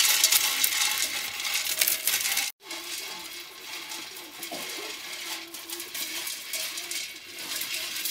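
A bundle of thin sticks whisked briskly inside a clay pot, giving a rapid, continuous rattling scrape against the pot. The sound cuts off for a moment about two and a half seconds in, then carries on quieter.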